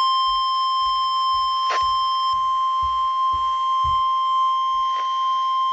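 Emergency alert tone: a single steady, loud beep at about 1050 Hz, the NOAA Weather Radio warning alarm tone that comes before a warning message is read.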